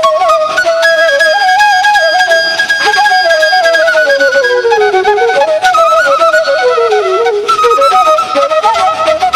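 Instrumental background music: a wandering melody with light percussion, holding one long high note about a second in and dipping low around five and seven seconds in.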